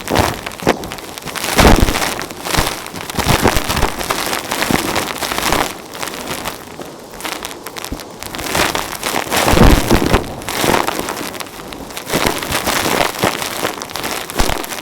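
Vacuum cleaner sucking up fine grit and fluff, a dense crackling crunch of debris rattling into the nozzle that swells and fades in uneven surges.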